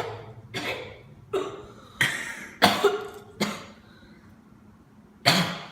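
A person coughing, a quick run of harsh coughs and one more near the end, set off by the fumes from jelly beans burnt in a microwave.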